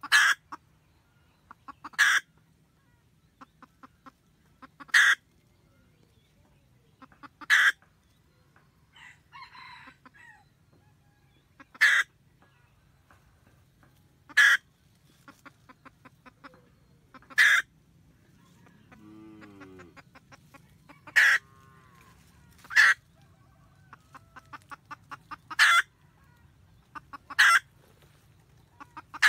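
Red junglefowl hen cackling to call the cock: runs of soft quick clucks, each rising to a loud sharp call, about a dozen loud calls two to four seconds apart. A lower, wavering call comes about two-thirds of the way through.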